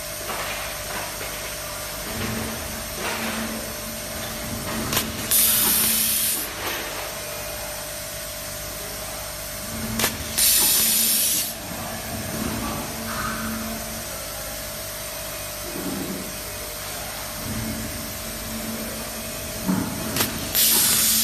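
SWIFT SWT36150H handheld automatic nylon cable tie gun cycling three times: each cycle a sharp click, then a loud hiss lasting about a second as compressed air blows the next tie through the feed tube. A steady machine hum runs underneath.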